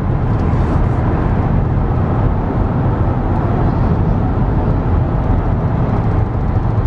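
Steady road noise inside a car cruising at highway speed: a constant low rumble from the moving car.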